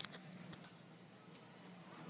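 Faint clicks and ticks of baseball cards being flipped through by hand, with one sharper click at the start, over a steady low hum.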